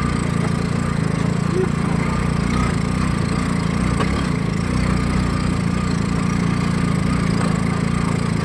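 Honda Supra X 125 motorcycle engine, a 125cc single-cylinder four-stroke, running steadily in a homemade mini jeep, with a rough crackling edge to its note.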